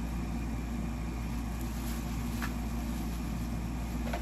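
Steady low mechanical hum from an appliance running in the room, with a couple of faint clicks or crinkles as the plastic-wrapped ring light is handled.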